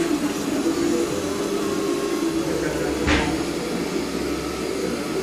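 Einstart 3D printer running mid-print: a steady whir from its cooling fans, with motor tones that shift in pitch as the print head moves. A single click comes about three seconds in.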